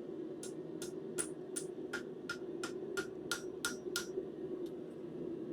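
Blacksmith's hammer striking hot steel on an anvil, about eleven ringing blows at an even pace of roughly three a second, stopping about four seconds in, with a steady hum underneath.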